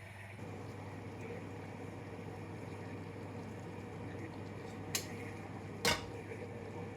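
Liquid bubbling steadily in a pot on the stove, with two sharp clinks of a utensil against cookware about five and six seconds in, the second louder.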